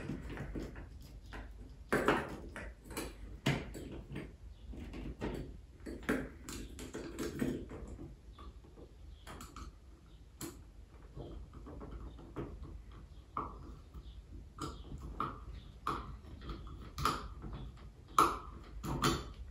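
Irregular small clicks, taps and scrapes of a screwdriver and metal fittings as a chandelier's metal ceiling canopy is screwed up to the ceiling.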